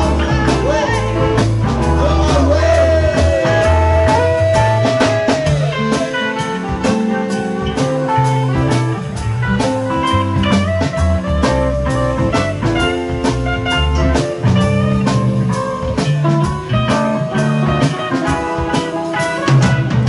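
Live band playing amplified rock music: electric guitars, bass guitar, drum kit and keyboard.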